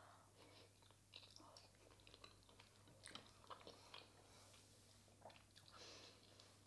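Faint chewing of a mouthful of mashed potato, with small scattered mouth clicks.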